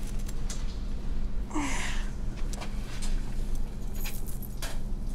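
Low steady hum, with a few faint clicks and one short sound with a falling pitch about one and a half seconds in.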